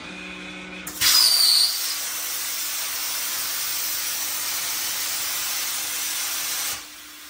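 Plasma cutter torch firing on a CNC table: after about a second of low hum, the arc strikes with a loud hiss of air and arc, harshest for the first half-second, then a steady hiss as it cuts sheet metal, stopping suddenly near the end.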